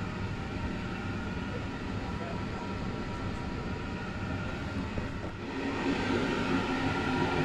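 Steady hum and rumble inside an ÖBB Nightjet sleeper carriage. It grows louder and fuller about five and a half seconds in, as the end vestibule by the connecting door is reached.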